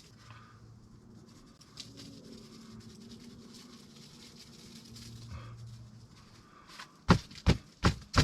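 A container of dry seasoning mix being shaken out over a pork tenderloin: faint rattling and sifting, then four sharp knocks near the end as it is shaken hard.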